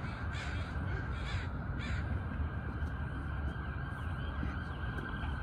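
A crow cawing in a series of harsh calls, about two a second, that stops about two seconds in, over a steady low rumble.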